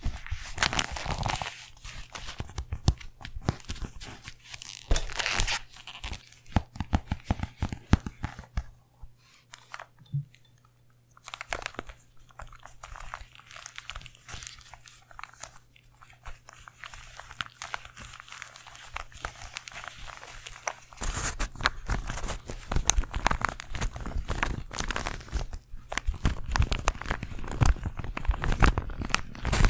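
A plastic Rubik's cube being twisted and handled by leather-gloved fingers with long nails close to a microphone, making a dense run of clicks and clacks that gets louder and fuller in the last third. In the first seconds, a glossy hardcover book cover is handled instead.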